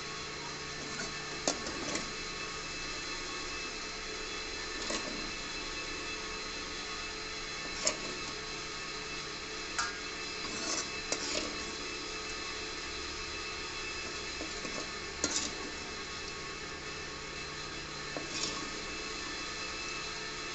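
Pork curry frying in a steel pan on a gas stove: a steady sizzle, with clinks and scrapes of a spoon against the pan now and then.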